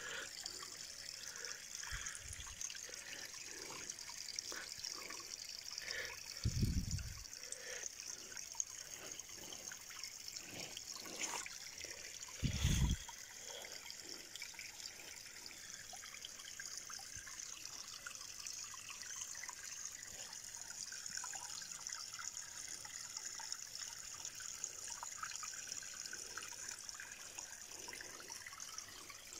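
Water trickling steadily into a small stone-edged garden pond. Two short, dull thumps break in, at about seven and thirteen seconds.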